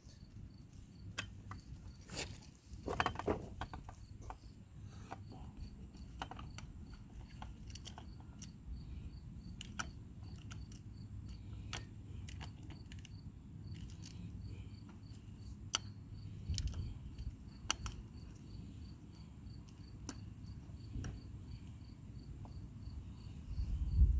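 Scattered small clicks and knocks of hands and tools handling chainsaw parts. Under them, a cricket chirps evenly and steadily.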